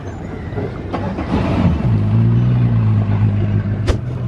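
An engine rumbling, then settling into a steady low idle hum about two seconds in, with a sharp click near the end.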